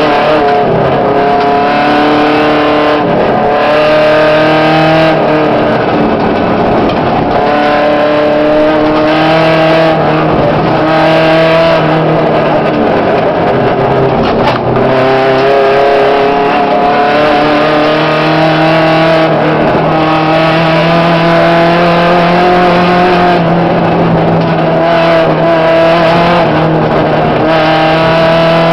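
Volkswagen Gol rally car's engine heard from inside the caged cabin at full effort on a dirt stage. It revs up and drops back over and over, with a steadier stretch later on.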